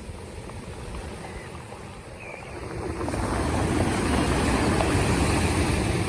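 Black Sea surf washing in, swelling louder about halfway through, with wind buffeting the microphone.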